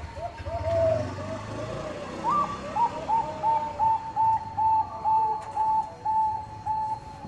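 Zebra dove (Bangkok perkutut) cooing: a run of short, lower notes, then about two seconds in a rising note followed by a regular series of short, clipped higher coos, about three a second.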